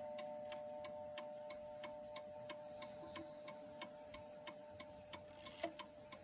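Ticking of a 1940s Odo eight-day, spring-driven pendulum clock movement, about three ticks a second, while a few steady notes from its chime rods slowly die away. A slightly louder click comes about five and a half seconds in.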